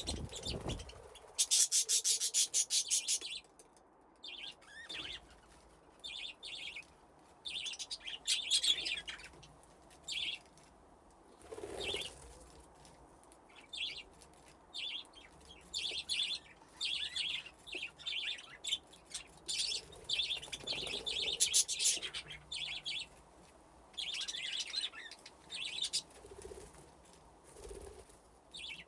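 Budgies chirping and chattering in bursts, several birds at once, with rapid high warbling runs between quieter pauses.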